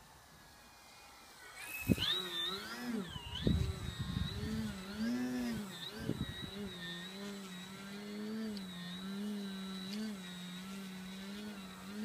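Electric motor and propeller of an RC Super Decathlon model plane, starting about two seconds in and running with a pitch that rises and falls as the throttle is worked, then holding steadier. Gusts of wind rumble on the microphone during the first few seconds of the sound.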